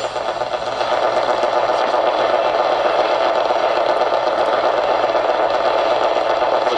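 Steady static hiss from the speaker of a 1978 Sharp 3T-57 clock radio on the AM band, with no station coming in.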